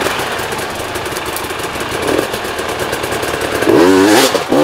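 Enduro motorcycle engines running, with a wavering rise and fall in pitch about four seconds in as a bike is revved.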